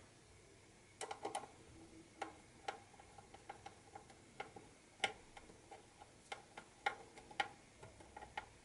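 Hand screwdriver driving the small screw that holds the optical drive into a laptop's plastic base: a run of light, uneven clicks and ticks, starting about a second in.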